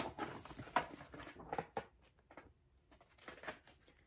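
Paper rustling and handling as a hardcover cookbook is opened and its pages are turned: a quick run of short rustles and taps, then a few fainter ones.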